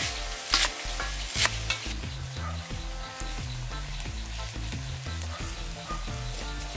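Cleaver chopping green onions on a round wooden chopping board: two sharp chops in the first second and a half, then none, over a steady hiss.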